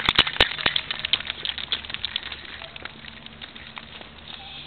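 Rapid, irregular crackling clicks, loud at first and thinning out over about two seconds into scattered faint ticks.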